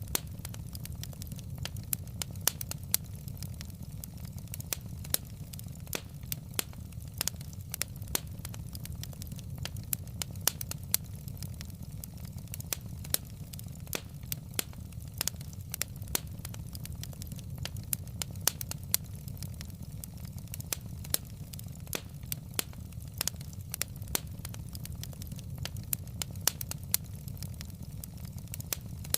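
Wood fire burning in a fireplace: burning logs crackling with irregular sharp pops, several a second, over a steady low rumble of the flames.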